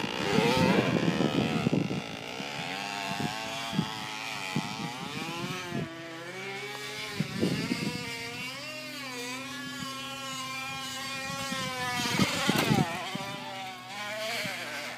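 A crushed plastic water bottle wedged against a bicycle wheel's spokes, flapping on them as the bike is ridden to make an engine-like buzz whose pitch rises and falls with the wheel's speed. Louder bursts of noise come in the first two seconds and again about twelve seconds in.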